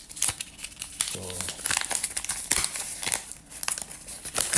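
Plastic packaging crinkling and rustling in the hands as the freshly cut package is opened and its contents pulled out, an irregular run of crackles.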